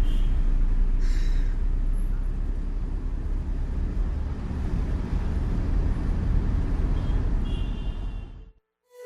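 Steady rumble of road traffic and vehicles, like a street field recording, with a couple of brief high squeals; it cuts off abruptly near the end.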